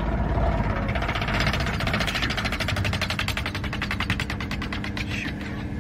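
Small single-engine propeller plane on its landing roll with a rapid mechanical clatter, about fifteen sharp ticks a second, starting about a second in and fading near the end, as its nose gear gives way and the nose drops toward the runway.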